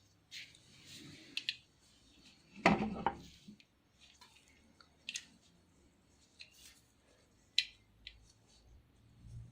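Antique camera being handled: scattered sharp mechanical clicks and ticks, with one louder clunk about three seconds in.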